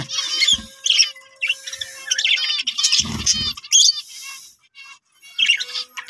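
A flock of budgerigars chirping and chattering in many short, warbling calls, with a brief low thud about three seconds in.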